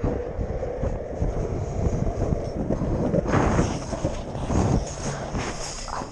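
Skateboard wheels rolling over concrete, a continuous gritty rumble with wind buffeting the microphone. The rumble gets rougher and bumpier through the middle stretch.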